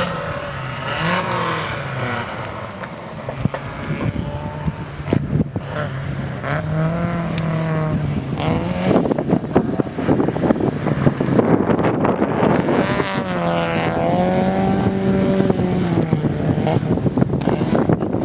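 Volkswagen Gol rally car engines driven hard on a gravel stage, revving up and dropping back several times as the cars brake, shift and accelerate past. Gravel spray is heard under the engines, and there are a few sharp knocks.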